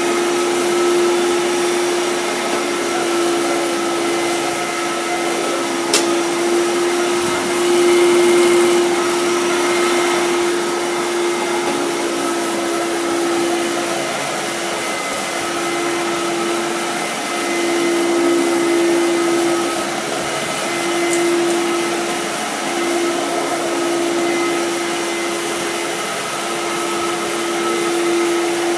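Fantom Domestic vacuum cleaner, about 31 years old, running at full speed with a steady high-pitched motor hum. From about halfway through, the pitch dips briefly every second or two. A single sharp click comes about six seconds in.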